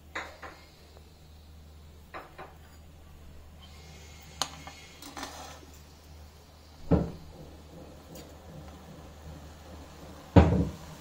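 Stainless steel utensils clinking, then a steel ladle knocking against a stainless steel saucepan while stirring liquid. There are a few light clinks, then two heavier knocks, about seven seconds in and near the end, the second the loudest.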